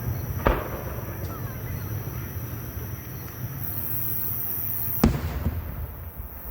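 Fireworks going off: two sharp bangs, one about half a second in and another about four and a half seconds later.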